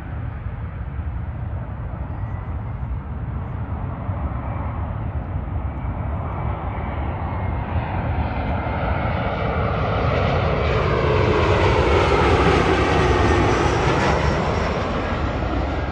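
Airliner passing close by, its engine noise building steadily to a peak about twelve seconds in. The pitch falls as it goes past, and the sound begins to fade near the end.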